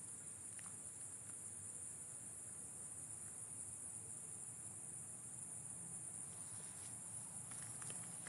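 Steady, high, shrill chorus of night insects such as crickets, with a few faint clicks near the end.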